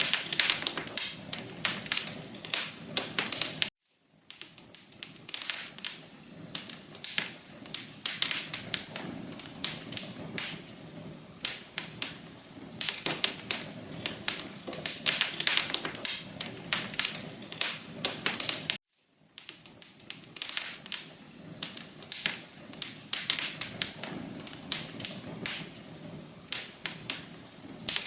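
Wood fire crackling, dense sharp pops and snaps over a steady low hiss. The sound drops out completely for a moment twice, near 4 seconds and again near 19 seconds.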